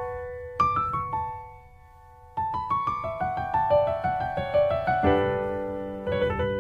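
Soft background piano music: single struck notes in a slow melody, a brief pause, then a rising run of notes and held chords.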